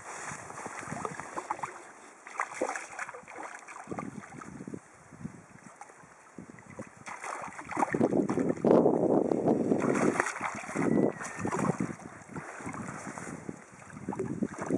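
A hooked fish splashing and thrashing at the surface of a river, with wind buffeting the microphone; loudest from about eight seconds in.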